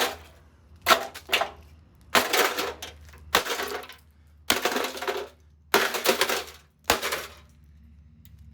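The wreck of an Emerson microwave being smashed with repeated blows: about seven strikes roughly a second apart, each a sudden crash followed by a short clatter of metal and plastic parts.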